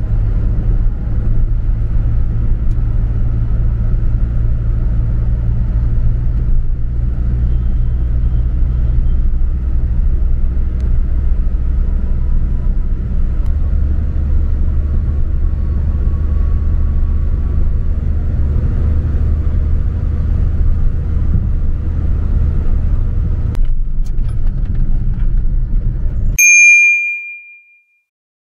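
Steady road and engine rumble inside a car cabin moving at speed on a highway. Near the end the road noise cuts off abruptly and a single bright bell-like ding rings out and fades.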